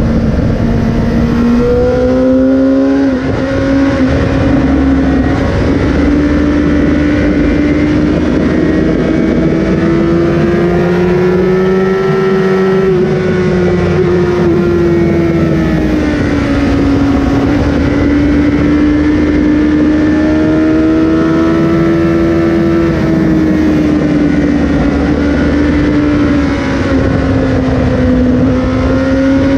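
A Suzuki sport motorcycle's engine running hard at high revs on track. Its pitch steps up twice near the start, then climbs and falls slowly through long stretches as the bike accelerates and eases off.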